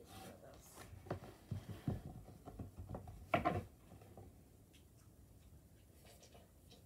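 Handling noise: a string of light knocks and clicks, clustered between about one and four seconds in, the loudest about three and a half seconds in.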